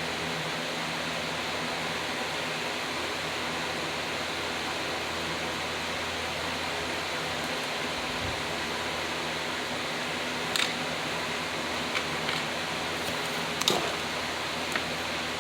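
Steady hiss, with a few light clicks in the second half, the sharpest about two seconds before the end.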